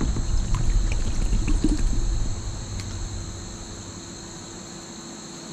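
Water splashing and pouring off a glass bottle as it is lifted out of a shallow river by hand, the low, churning water sound fading away after about two and a half seconds. Insects trill steadily in the background.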